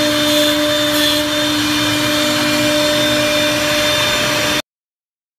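CNC mortising machine's high-speed router spindles running steadily with a hum and hiss while cutting slots into wooden slats. The sound cuts off abruptly near the end.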